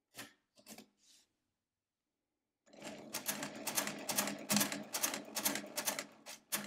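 Lindström Record mechanical calculator: three light clicks as a part is set at the keyboard, then from about three seconds in its crank handle is turned, a rapid run of mechanical clicking and clattering at about five clicks a second.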